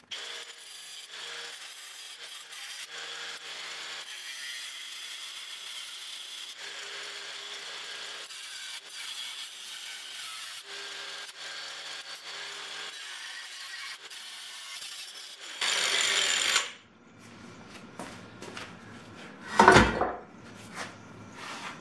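Cordless angle grinder with a cut-off wheel cutting through the aluminium bellhousing of a CD009 transmission case: a steady hiss of the wheel in the metal, rising to a much louder cutting burst about sixteen seconds in. Near the end a single loud metal knock comes as the cut bellhousing is pulled free.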